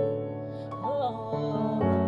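Keyboard accompaniment playing sustained chords of a slow song's intro, with the chords changing a few times.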